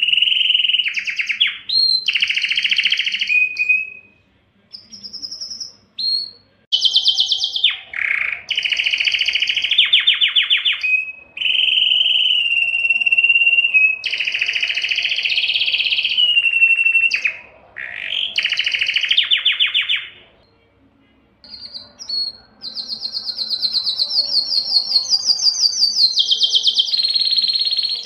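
Domestic canary singing: a long song of held whistled notes and fast trills, in phrases broken by short pauses about four seconds in and again around twenty seconds in.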